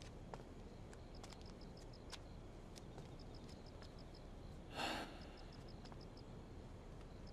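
Faint night ambience of crickets chirping in short repeated pulses, with a few soft footsteps and one short breathy sigh about five seconds in.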